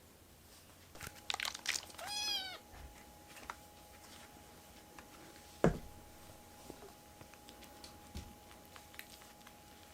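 A kitten meows once, a short call that rises and falls in pitch, just after a spell of small clicks and rustling. A single sharp thump comes about halfway through.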